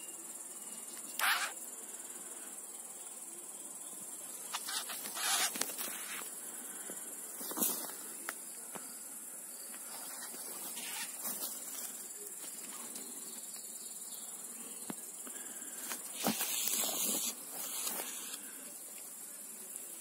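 Steady high-pitched chirring of night insects such as crickets or bush-crickets, with several brief rustles of grass and vegetation.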